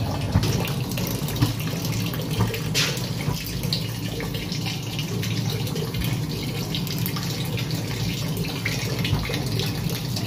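Water running steadily, as from an open tap, in a continuous splashing stream.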